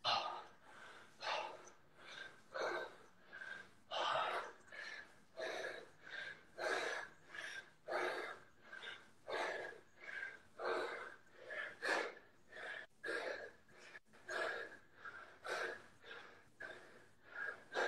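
A man breathing hard from exertion, short sharp breaths in a steady rhythm of about three every two seconds.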